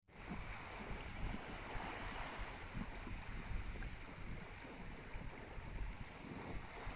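Wind buffeting the microphone in gusts over a steady rush of sea water.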